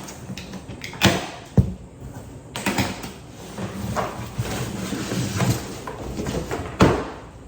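A large cardboard box being unpacked by hand, its packing straps cut off: scraping and rustling with four sharp knocks or snaps.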